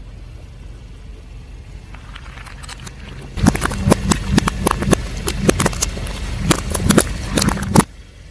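Car tyre crushing brittle objects: a rapid run of sharp cracks and snaps over a low engine rumble, starting about three seconds in and stopping abruptly near the end.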